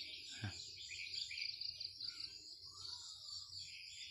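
Small birds chirping in short, scattered calls over a steady, high-pitched insect drone, with a brief soft thump about half a second in.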